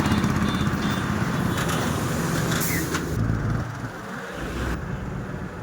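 Heavy diesel engine running, with a short hiss about two and a half seconds in; the engine sound drops lower after about three and a half seconds.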